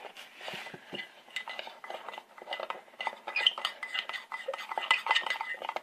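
A spoon stirring and scraping in a container with many quick, irregular clinks, as washing powder is mixed into silicate glue to make slime.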